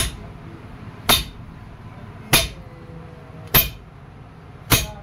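Hammer blows on metal, five evenly spaced strikes about one every 1.2 seconds, each with a short ring: a new steel bush being hammered into the pivot of a tractor clutch/brake pedal.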